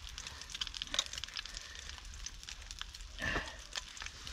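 Small wood fire crackling in a OneTigris box stove, with an egg frying in the pan on top: scattered light crackles and ticks. A brief louder sound comes a little over three seconds in.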